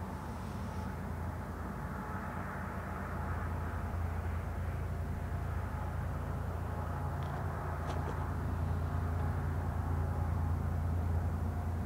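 GE ES44 diesel locomotives heading a freight train, their engines running as a steady low drone that grows gradually louder as the train approaches.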